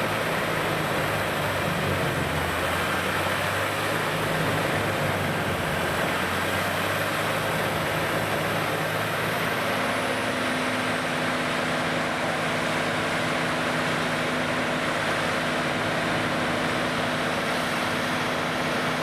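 CBI Magnumforce 5400 grinder running steadily, a loud, even mechanical noise with a deep engine hum. A high whine fades out about halfway through.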